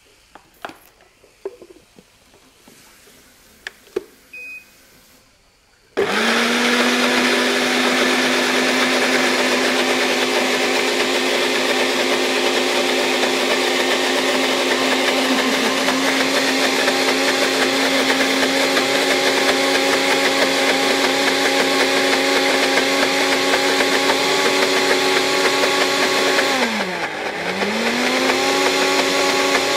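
A few light clicks, then a countertop jug blender starts abruptly about six seconds in and runs steadily, puréeing ginger, garlic, chilli and olive oil into a sauce. Near the end its pitch sags briefly and then climbs back.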